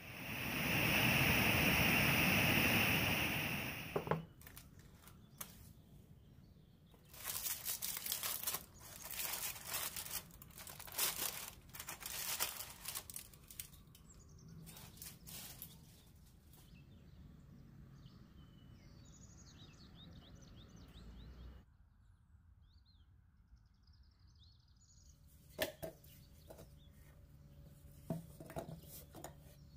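Small birds chirping off and on. A loud rush of noise fills the first four seconds, and runs of sharp clicks and knocks of handling follow in the middle and again near the end.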